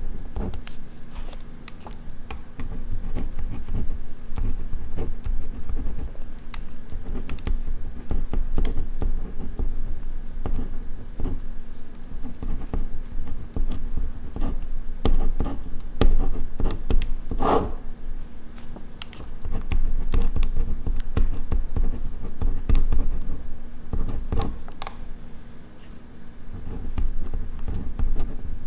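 Ballpoint pen writing on paper, close-miked: irregular scratchy strokes and small clicks of the pen tip, with one longer stroke about two-thirds of the way through.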